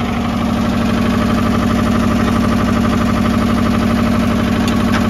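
Air-cooled two-cylinder engine of a Goldoni 230 compact tractor running steadily with an even beat.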